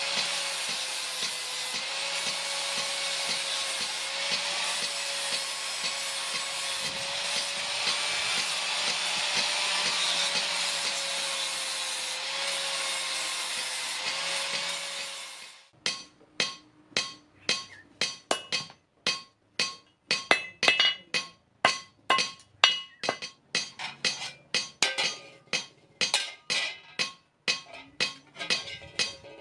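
Angle grinder grinding steel, its motor tone wavering slightly under load, stops about sixteen seconds in. Then a hammer strikes hot steel about twice a second, each blow short and ringing.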